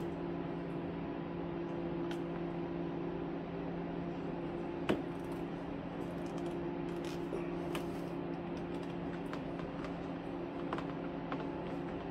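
Steady low mechanical hum, with a few faint clicks and taps of plastic check valves and air tubing being handled and pushed together; the sharpest click comes about five seconds in.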